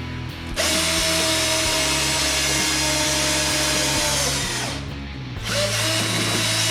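Cordless drill-driver running steadily as it drives a long screw into MDF. It stops for about a second near the end, then starts up again. Background music plays underneath.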